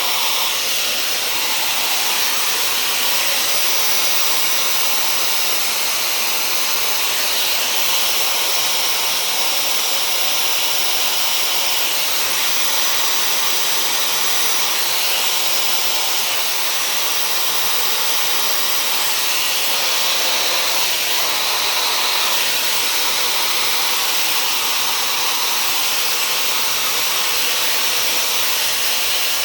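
Dyson hair dryer with a diffuser attachment running steadily, a constant high-pitched rush of air as it dries curly hair.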